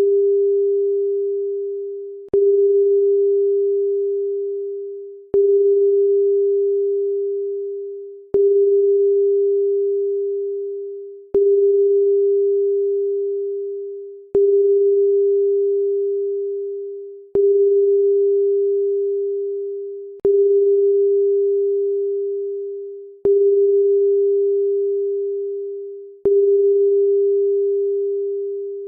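A single pure electronic tone, a little under 500 Hz, struck anew about every three seconds: each one starts abruptly with a click and then fades away, like a bell, before the next begins.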